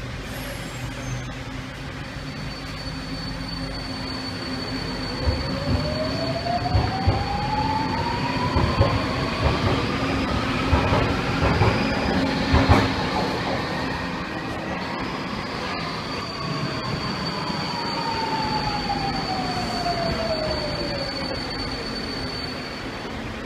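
Budapest M2 metro train (Alstom Metropolis) pulling out of the station, its electric traction motor whine rising in pitch as it gathers speed, with the wheels clicking over the rail joints; then a train coming in on the other track, its whine falling in pitch as it brakes to a stop. A thin, steady high whistle sounds through much of both.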